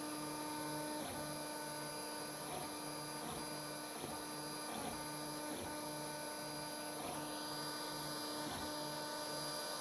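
Geeetech A10 FDM 3D printer printing: its stepper motors whine in short repeated moves, with a low tone switching on and off about twice a second under a steady high hiss.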